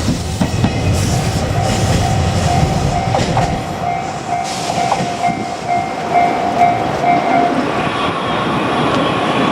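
JR Kyushu 817 series electric train running past a level crossing, its wheels clattering over the rail joints. The low rumble eases off after about three or four seconds as the train moves away. Through the middle a steady pulsing tone rings, the level-crossing alarm, and it gives way to a different steady tone near the end.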